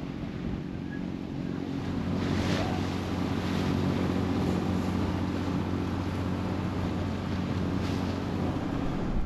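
Wind buffeting the microphone and water rushing along the hull of a sailboat under way, over a steady low hum. The wind and water grow louder about two seconds in.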